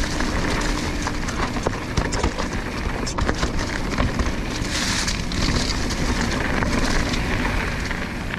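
Mountain bike riding over a dirt trail: tyres rolling with a steady rumble and wind on the microphone, and quick rattles and clicks from the bike over the ground, with a short louder hiss about five seconds in.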